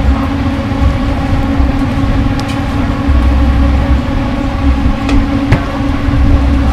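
A steady mechanical hum over uneven low rumbling, with a few sharp clicks.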